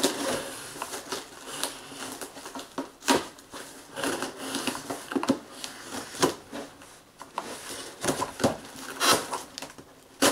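A knife cutting the packing tape along the top of a cardboard box: irregular scraping and sharp clicks of the blade on the tape and cardboard.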